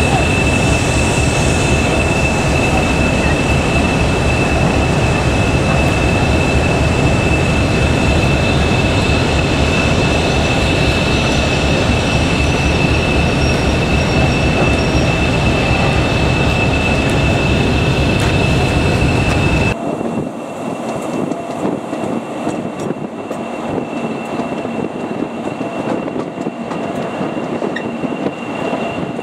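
Class 40 diesel locomotive working a train of coaches: a loud, dense rumble with a steady high turbocharger whistle on top. About two-thirds of the way through the sound cuts to a quieter run heard from the train behind the locomotive, the whistle still faintly there.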